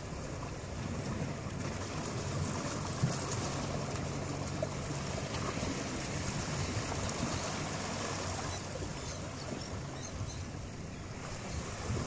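Sea surf washing and splashing steadily among shore rocks, with wind on the microphone.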